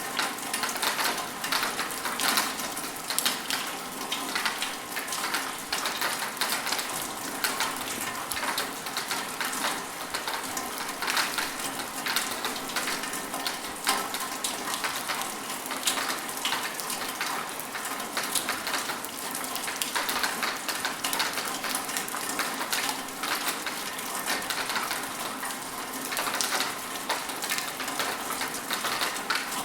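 Rain falling steadily, a dense patter of many small drops over a continuous hiss.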